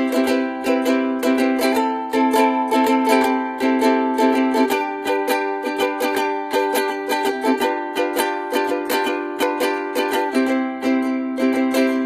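A Snapchat ringtone: a looping plucked-string melody with quick, evenly repeated plucked notes over steady held tones.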